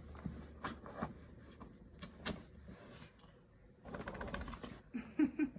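Kittens at play: scattered light clicks and rustling from paws and toys, with a dense flurry of rustling about four seconds in and three short low murmurs near the end.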